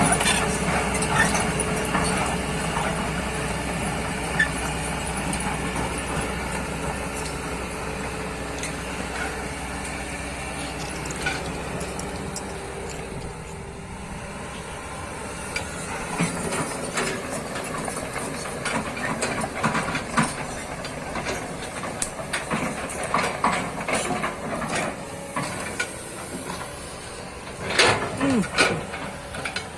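Kobelco hydraulic excavator's diesel engine running, its hum dying away over the first half. From about halfway on come scattered knocks and clanks, with a loud cluster near the end.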